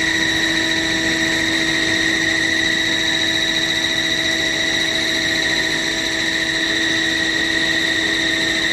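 Processing machinery running: a steady high-pitched whine over an even hiss, unchanging throughout.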